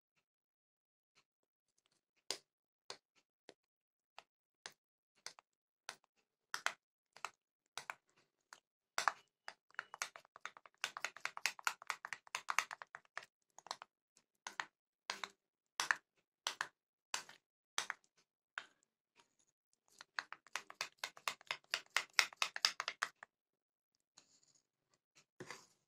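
Metal spoon clicking against a bowl while stirring flour into oil: spaced single taps at first, then two stretches of rapid clicking, one near the middle and one near the end.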